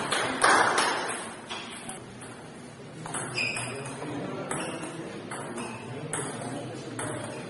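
Table tennis rally: the ball clicking sharply off bats and the table in a quick back-and-forth, with strikes coming every half second or so and clearest from about three seconds in. Voices of onlookers carry on underneath.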